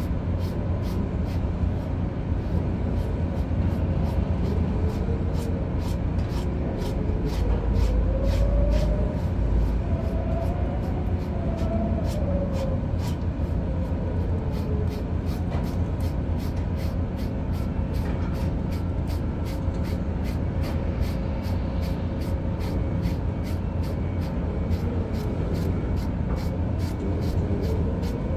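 Steady low drone of a ship's running machinery with a faint hum, and quick, even scratching strokes of a slicker brush being drawn through a dog's coat several times a second.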